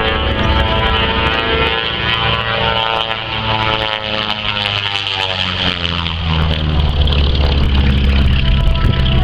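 A Beechcraft Model 18's twin Pratt & Whitney R-985 radial engines and propellers running hard through an aerobatic pass. The engine drone sags in pitch a few seconds in, then climbs again and grows louder toward the end.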